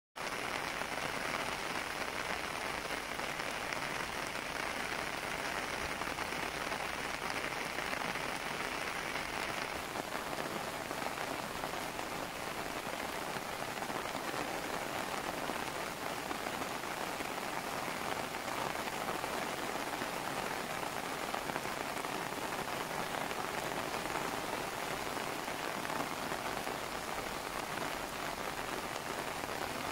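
Steady rain falling on a lake's surface and the forest around it: an even hiss, its tone shifting a little about ten seconds in.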